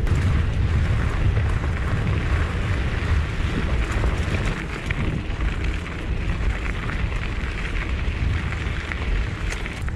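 Mountain bike being ridden on a dirt trail, heard through an action camera's microphone: steady wind buffeting and low rumble from the tyres on the trail, with small scattered clicks and rattles from the bike.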